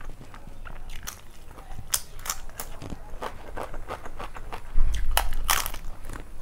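Close-miked eating: crisp papad being broken and crunched between the teeth, with sharp crackles and chewing. A louder run of crunching comes about five seconds in, set off by a low bump.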